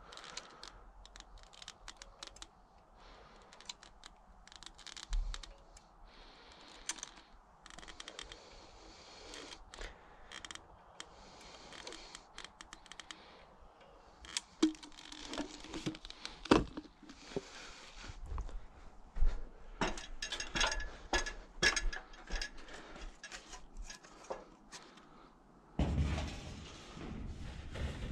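A hand-held caulking gun being loaded with a tube of adhesive and worked by hand: scattered clicks, knocks and scrapes of the gun and its plunger rod, thickest in the second half, with a short low rumble near the end.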